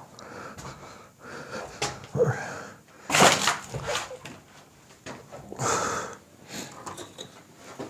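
A person's heavy, wheezy breathing close to the microphone: several irregular breaths, the loudest about three seconds in and another near six seconds.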